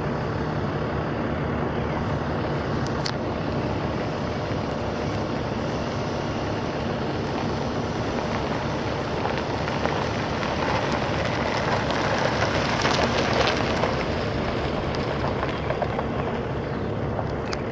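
Chevrolet Silverado pickup's 4.3-litre V6 engine running steadily under a constant rushing noise, which grows louder for a few seconds about ten seconds in.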